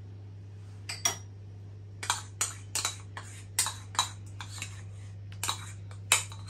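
Metal spoon scraping melted butter out of a small plastic bowl over a stainless-steel mixing bowl, clinking and tapping in quick irregular clicks that start about a second in and come thick from about two seconds on. A steady low hum runs underneath.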